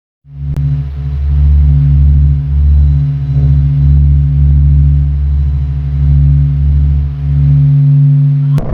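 A deep, steady drone of a few low stacked tones that throbs slowly. It is a 'sound of a planet' recording, spacecraft space data turned into sound. It starts just after a silence and cuts off suddenly near the end.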